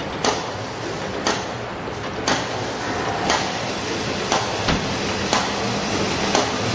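On-roll garbage bag making machine running, with a sharp knock about once a second over a steady mechanical running noise. A low hum joins near the end.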